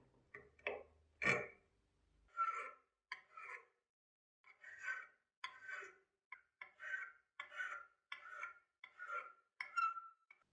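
Flat file scraping across the rim of a brass blowtorch burner tube held in a vise, about a dozen separate strokes at a steady pace. In the first second or so there are a few shorter, sharper scrapes of pliers on the brass.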